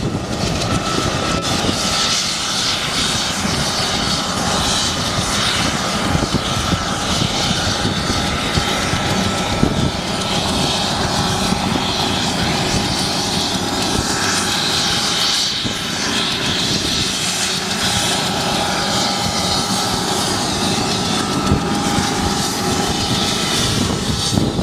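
Aircraft turbine engine running steadily: an even rushing noise with a faint high whine held at a constant pitch.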